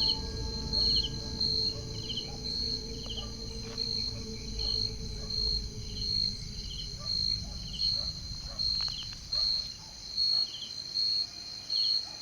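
Insects chirping steadily: one gives a high, even pulse about twice a second, another a slightly lower chirp now and then. A low rumble underneath dies away about ten seconds in.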